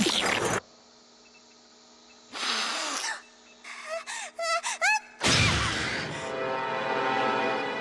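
A cartoon girl's sneeze: a noisy burst that cuts off just after the start, a pause, then short high-pitched gasping breaths building up. A sudden loud sneeze follows a little past halfway and runs into music on held chords.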